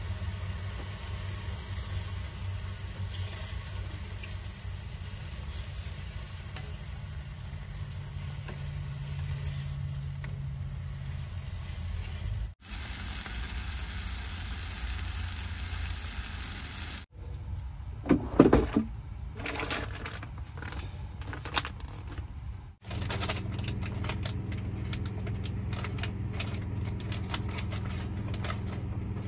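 Sliced mushrooms in sauce sizzling in a nonstick frying pan, over a steady low hum. A few sharp knocks of utensils a little past halfway, and small clicks near the end.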